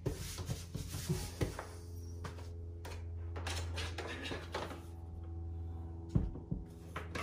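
Light knocks and clicks of objects being handled and set down on a desk, over soft background music with held notes and a steady low hum.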